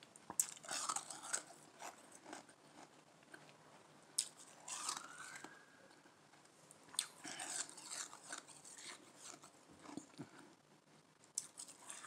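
Soft Igloo ice being chewed close to the microphone: several bursts of soft crunching come and go, the thickest about half a second in and between seven and nine seconds. A short rising squeak sounds around five seconds in.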